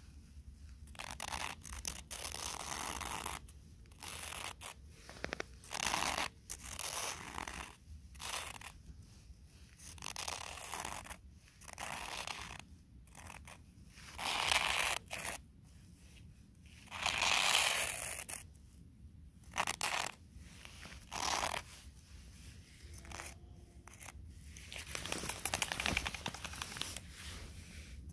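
Footsteps crunching in snow: a slow, uneven series of separate crunches, some louder than others.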